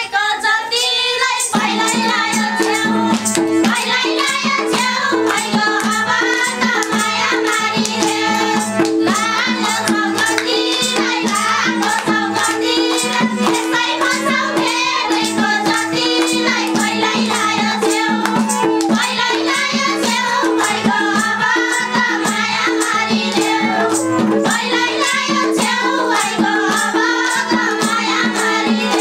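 Nepali live dohori folk song: a group of women singing together over a harmonium drone and madal drum, with hand clapping keeping the beat. The steady drone comes in about a second and a half in.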